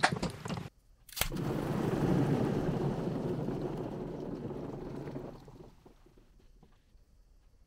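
Water balloon packed with water beads bursting with a sharp crack about a second in, then water and beads splashing and sloshing into a glass bowl. The splashing dies away after about four seconds into faint ticks of settling beads.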